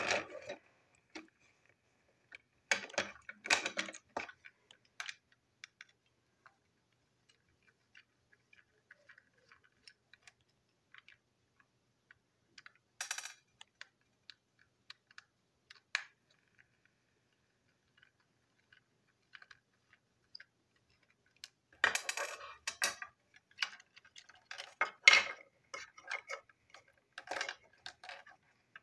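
Small hard plastic parts of a TrackMaster toy train coach clicking and clattering as it is taken apart by hand and with a small screwdriver: scattered clicks with quiet stretches between, a short cluster about 3 s in, another around 13 s, and denser rattling from about 22 s on as the body comes off the chassis.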